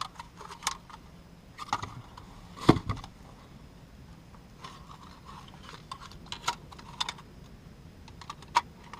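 Scattered light plastic clicks and taps from handling a car's master power window switch assembly, with one louder knock about three seconds in.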